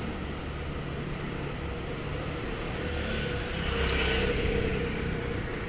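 Street traffic: a motor vehicle's engine running close by, with a steady whine that swells loudest about four seconds in as it passes.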